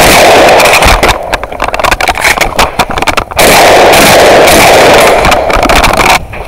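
Shotgun fired repeatedly at close range. The shots are loud enough to overload the microphone in two stretches of about a second and a half each, with sharp cracks between them.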